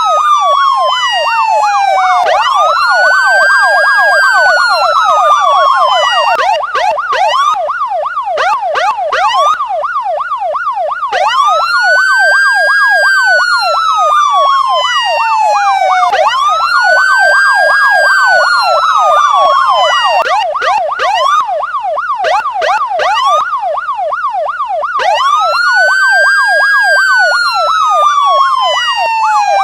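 Electronic police car siren: a fast yelp sweeping up and down several times a second runs throughout, and four times a slower wail overlays it, rising quickly and then falling away over about four seconds.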